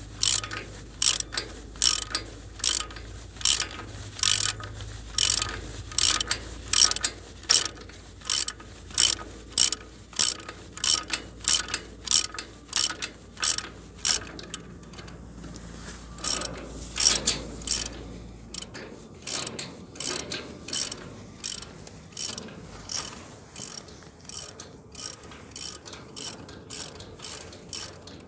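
Ratchet wrench working on the boom's bolts: sharp clicking strokes, about two a second, over a low hum that stops about two-thirds of the way through.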